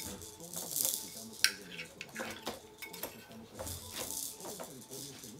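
A metal fork cutting into food and clinking and scraping against a plate, with several sharp clinks, the loudest about a second and a half in.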